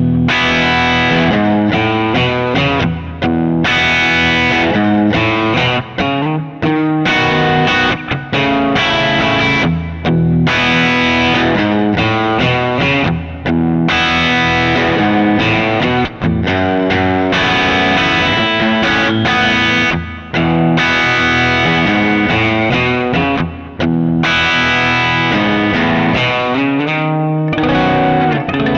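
Electric guitar, a Gretsch hollow-body, played through a Kemper profile of a Bad Cat Hot Cat 40 amp in a driven, distorted setting: chords and riffs with short pauses between phrases, ending on a held, ringing chord.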